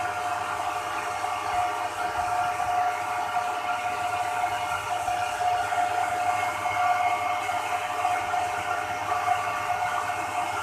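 Cooling fans of an ASIC Bitcoin miner running flat out: a steady rushing with a high fan whine held at one pitch.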